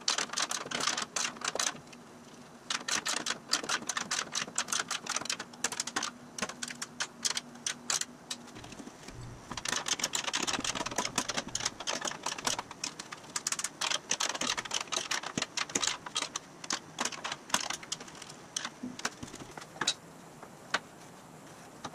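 Hand ratchet clicking in quick runs of many ticks with short pauses, as bolts holding an aluminum cowl to a steel frame are run in and tightened.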